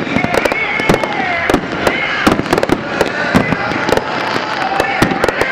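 Fireworks display: aerial shells and crackling stars going off in a dense, irregular barrage of sharp bangs and pops, several a second.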